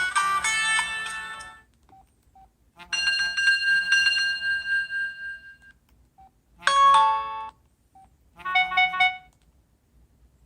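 Built-in default tones of an LG Rhythm AX585 cell phone played through its small speaker: a series of short electronic melodies separated by pauses. The first tails off about a second and a half in, the second ends on a long held note, and two brief jingles follow near 7 and 9 seconds in.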